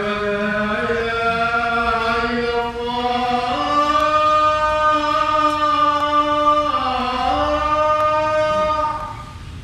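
A man's solo Islamic prayer chant through the mosque's microphone: one long melodic phrase of held, sliding notes that steps up in pitch partway through, dips near the end, and stops about nine seconds in.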